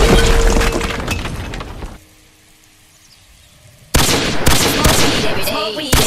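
A heavy crash of a boulder smashing into paving stones, with debris shattering, fading out over about two seconds. After a short lull, a rapid string of gunshot sound effects starts about four seconds in, followed by a voice near the end.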